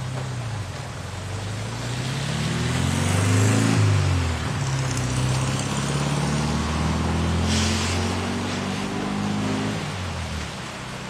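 A car goes by on the wet street, its engine hum rising and falling in pitch and loudest about four seconds in, with tyre hiss on wet pavement. Steady rain hiss lies underneath.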